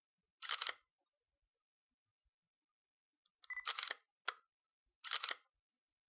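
Camera shutter clicking: a single click about half a second in, then a quick run of three clicks from about three and a half to five and a half seconds, with silence between.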